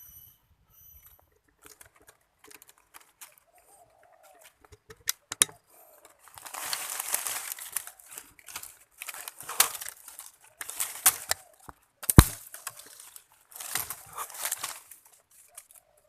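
Footsteps crunching and rustling through dry leaves and brush, in uneven bursts, with one sharp crack near the end.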